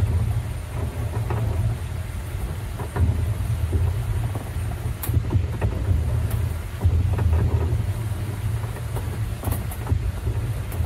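Low, uneven rumble of a small autonomous tram-style vehicle rolling over paved ground, heard from on board, with a few sharp clicks or rattles.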